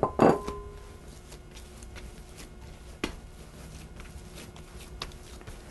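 Risen rye bread dough turned out onto a wooden cutting board: two knocks at the start, the second followed by a short ring, then soft quiet sounds of hands pressing and gathering the dough, with a faint knock about three seconds in.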